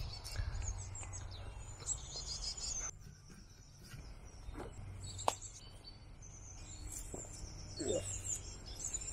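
Small birds chirping and trilling in scrubby woodland, over a steady low rumble of wind on the microphone. The sound drops abruptly about three seconds in, and there is a single sharp click a couple of seconds later; the birds pick up again near the end.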